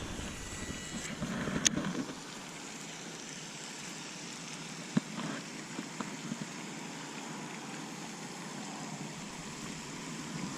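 Steady hiss of light rain, with a few sharp ticks about two, five and six seconds in.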